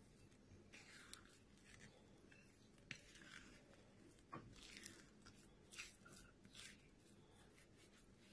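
Faint scraping and light clicks of a wooden stick stirring glutinous rice flour into mashed sweet potato in a glass bowl, scattered short strokes over near silence.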